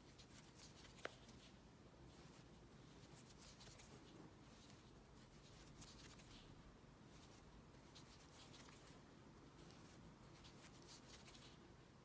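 Faint rustle of a crochet hook and yarn as stitches are worked, coming and going in short patches, with one small click about a second in.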